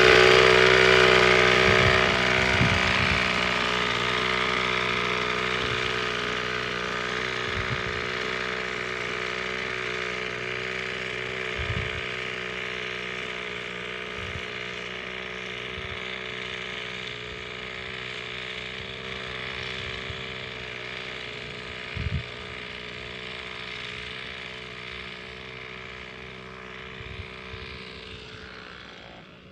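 Small engine of a backpack motorized sprayer running steadily, growing gradually fainter as its carrier walks away. There are a couple of brief knocks in the middle.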